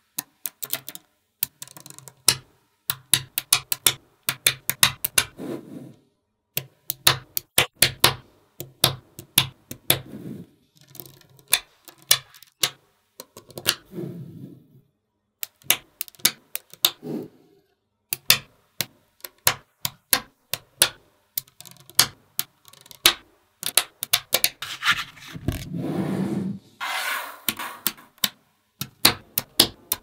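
Small magnetic balls clicking and snapping together, often in quick clusters of clicks, with a few short stretches of scraping as they are rolled or pushed into place.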